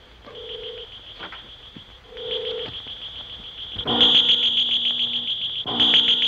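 Electronic science-fiction sound effect of the Martian war machine: a high, rapid pulsing trill with a short low hum about every two seconds. About four seconds in it grows much louder, and deeper sustained hums join as the machine's glowing eye appears.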